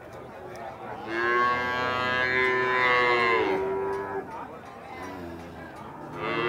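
Cattle mooing: one long moo beginning about a second in and lasting some three seconds, and another moo starting just at the end.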